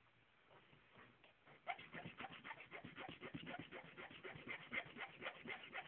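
Hand file rasping back and forth on a steel key blank in quick, even strokes, starting about a second and a half in, thinning one side of the blank to a knife edge for self-impressioning.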